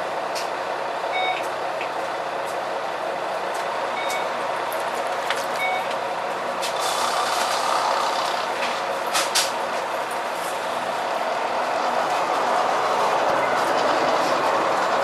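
A Neoplan N4426/3 three-axle double-decker bus running, heard from aboard near its ZF 5HP602C automatic gearbox. The MAN D2866 engine and driveline drone steadily over rattles and clicks, with a few short high beeps in the first half, and the noise grows louder near the end.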